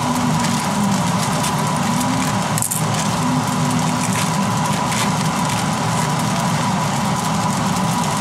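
Kitchen range hood exhaust fan running with a steady drone over a hot wok of fried rice. A plastic bag of frozen vegetables crinkles briefly about two and a half seconds in, with lighter rustles after.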